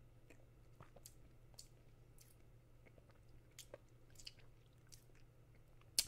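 Faint wet mouth sounds of someone tasting red wine: scattered soft lip smacks and tongue clicks, with a sharper click near the end, over a low steady hum.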